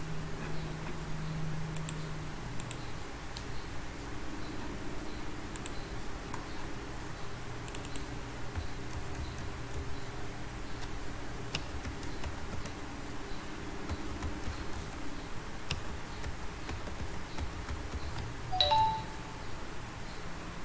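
Faint, scattered clicks of a computer mouse and keyboard over steady low room hum, with one short pitched beep near the end.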